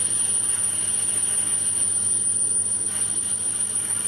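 Small bench metal lathe running while parting off a small workpiece held in an ER collet: a steady motor hum under a constant high-pitched whine.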